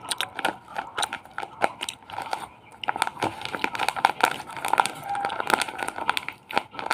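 Crinkling, crackling plastic being handled, a dense run of irregular small clicks that grows busier about three seconds in.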